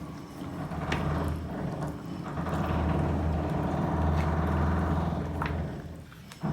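A low engine hum that dips briefly about two seconds in and fades near the end, with a few light clicks.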